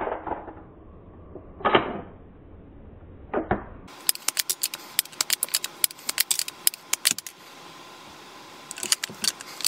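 Action of a Remington Model 511 Scoremaster .22 bolt-action rifle being cycled while the new magazine and magazine catch are tested. It starts with three loud metallic clacks about two seconds apart. From about four seconds in comes a quick run of lighter clicks and rattles, with a few more near the end.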